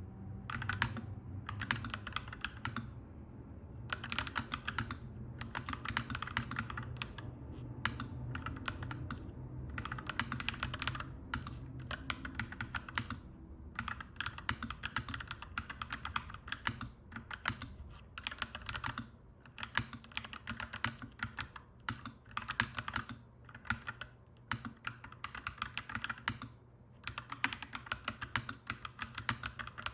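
Clacky mechanical keyboard being typed on in quick runs of keystrokes, broken by short pauses, over a steady low rumble.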